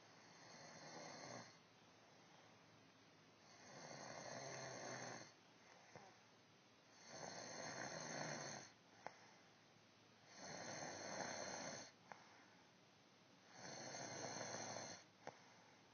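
A sleeping woman snoring in a steady rhythm: five snores, each lasting one and a half to two seconds and coming about every three and a half seconds, with a short click after several of them.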